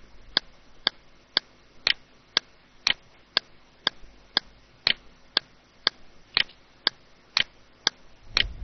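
Steady, clock-like ticking, evenly spaced at about two ticks a second.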